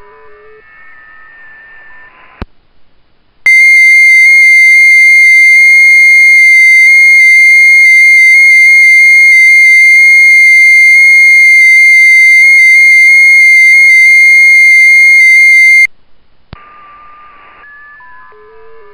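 FT8 digital-mode audio from a ham radio transceiver. Several faint, overlapping steady tones of received FT8 signals sound over hiss, then a click. About a second later the station's own FT8 transmission comes in as a single very loud, distorted high tone, held for about twelve and a half seconds. It cuts off suddenly, and faint received tones and hiss return near the end.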